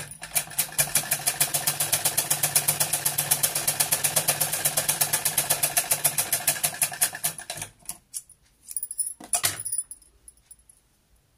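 Usha sewing machine stitching at speed with a rapid, even clatter that stops about seven and a half seconds in, followed by a couple of clicks. The machine runs noisily because tangled thread is jammed in the shuttle underneath.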